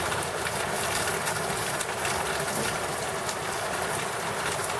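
Steady thunderstorm rain falling: an even hiss with a faint patter of drops, unbroken by any thunderclap.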